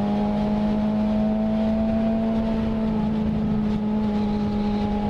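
Suzuki GSX-R SRAD motorcycle's inline-four engine, breathing through an adapted aftermarket exhaust, running at steady revs: a constant note that barely changes in pitch.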